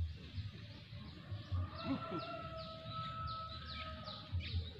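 A bird calling a fast run of short descending chirps, about three a second, starting about a second and a half in. A long steady tone sounds under it for a couple of seconds. Dull low thumps come throughout and are the loudest sounds.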